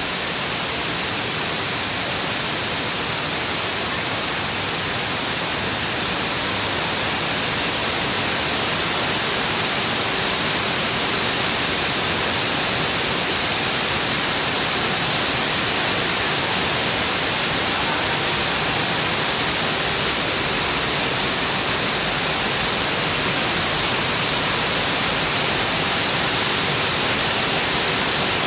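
Steady machinery noise of a green coffee processing and sorting plant: an even hiss with a faint hum underneath, running without a break.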